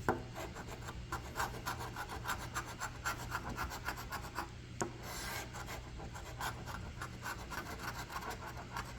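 A scratch-off lottery ticket being scratched: quick, repeated short scraping strokes across the ticket's coating, several a second.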